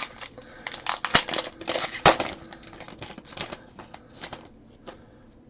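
Foil Pokémon booster pack wrapper crinkling and being torn open: a dense run of crackles that thins out over the last couple of seconds.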